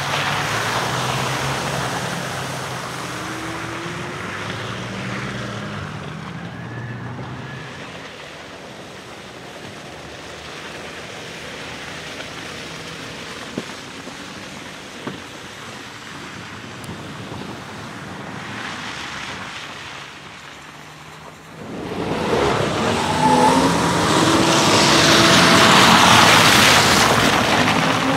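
Off-road SUVs driving slowly over gravel and mud, engines running at low speed with tyre noise from the stones. About 22 seconds in, a much louder, even noise rises and holds to the end.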